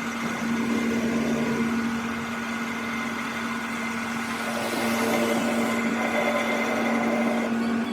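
A workshop electric motor running steadily with a constant hum and a noisy whir, cutting back sharply at the very end.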